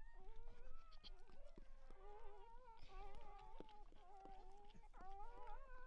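Newborn Weimaraner puppies whimpering: thin, wavering mewing cries that run on with hardly a break, two overlapping near the end.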